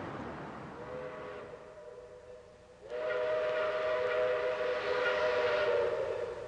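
Train whistle sounding a steady chord of several notes: a softer blast, then a longer, louder one from about three seconds in that fades out at the end.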